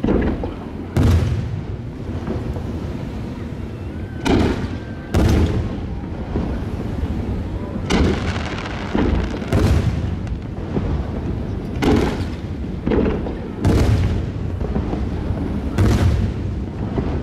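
Aerial fireworks shells bursting overhead: about eight deep bangs, one every one to three seconds, each trailing off in a low echo.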